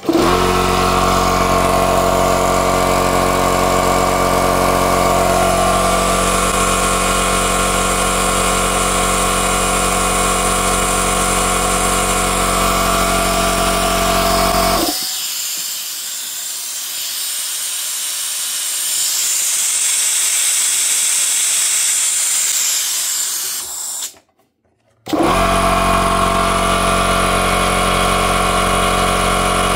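Small air compressor's electric motor and piston pump starting and running steadily. It cuts off suddenly about halfway, air hisses for several seconds, and then it starts again near the end, with no trip of its reset overload circuit breaker.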